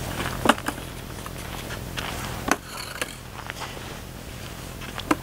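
A few short, scattered knocks and footsteps on packed snow, over a steady low rumble.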